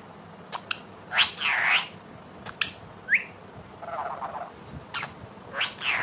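Alexandrine parakeet calling in short bursts: a few squawk-like calls, a quick rising whistle, and a brief warbling chatter about four seconds in, with a few sharp clicks between them.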